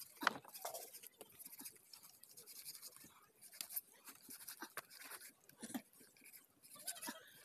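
Knife slicing and scraping through a pig carcass's skin and flesh: a run of short, irregular scratchy strokes and soft clicks.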